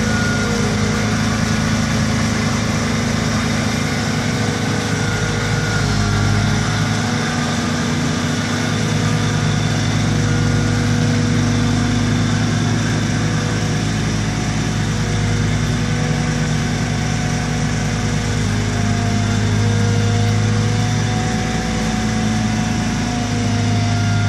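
Large propane-fuelled forklift's engine running steadily at idle.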